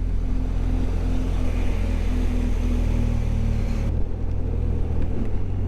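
Motorcycle engine running steadily on the move, with a hiss of wind and wet-road tyre spray; the hiss drops off about four seconds in and the engine note shifts.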